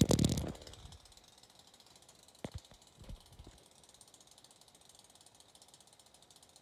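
Coocher 62cc two-stroke chainsaw engine firing with the choke on full and dying within the first half-second, then a few light clicks a couple of seconds later and near quiet.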